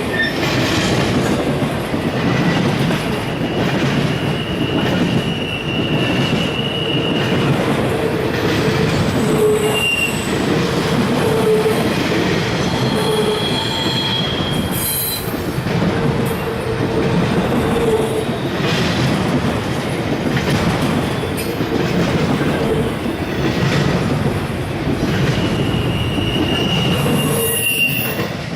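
Freight cars of a CSX train rolling past at close range: a steady rumble of steel wheels on rail, with high-pitched wheel squeals coming and going. The sound drops off just at the end.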